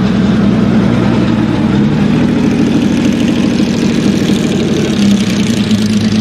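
Porsche 917's air-cooled flat-12 engine running steadily at a low, even pitch, with slight shifts in pitch along the way.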